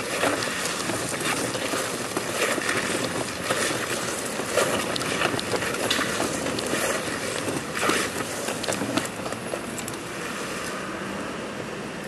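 A person army-crawling over paving stones: irregular scraping and rustling of clothing and shoes dragged along the stone close to the microphone, thinning to a steadier hiss near the end.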